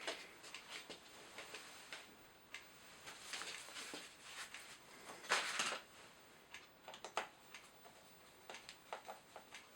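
Small screws and chainsaw parts being handled and fitted by hand: scattered light clicks and taps, with a louder brief scrape about halfway through.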